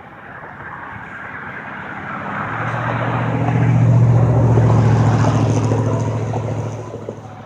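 A motor vehicle driving past close by. Its engine noise swells to a peak about four seconds in, then fades away.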